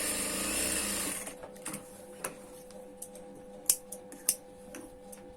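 Sewing machine running a double line of stitching along a collar seam, stopping about a second in. Then a few sharp clicks over a faint steady hum.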